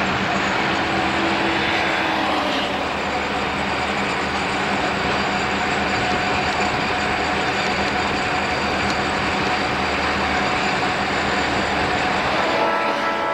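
Steady roar of road and wind noise from a moving car pacing a train, mixed with the drone of Southern Pacific diesel locomotives. About a second before the end, a locomotive air horn starts to sound.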